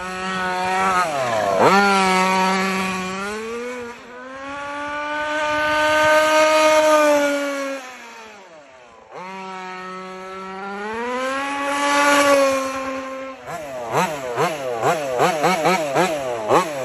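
A 1/5-scale MCD XS5 Max RC car's Taylor RC 35cc gas engine at high revs in two long pulls. Each time it revs up, holds a steady high pitch for a few seconds, then falls off. In the last few seconds it revs up and down in a string of quick throttle blips.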